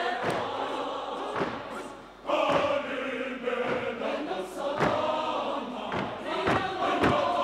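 Large mixed choir singing together, with repeated low thumps under the voices. The singing drops away briefly about two seconds in, then comes back in full.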